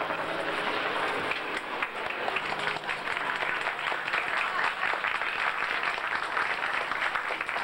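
Crowd applauding: many hands clapping in a dense patter that swells a second or two in and holds.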